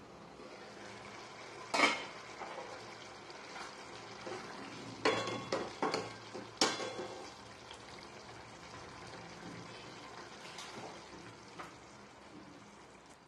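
Steel lid lifted off a pan with a clink about two seconds in, then a steel ladle stirring a thick gourd and moong dal curry as it sizzles and simmers, with three knocks of the ladle against the pan near the middle.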